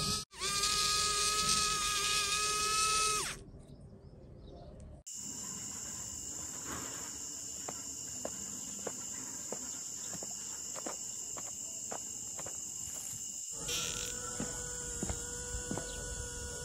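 Small DC motor of a homemade model locomotive whining steadily, cut off about three seconds in. Then comes a steady high-pitched thin whine with scattered light clicks of small track parts being handled. The motor whine returns near the end.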